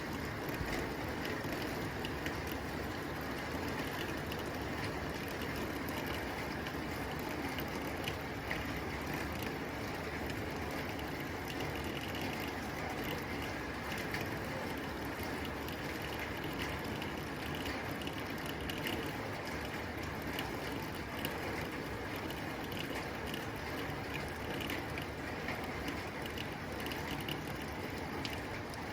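Rain falling steadily on a tin roof, a dense rattle of many small drop ticks on the metal over an even hiss.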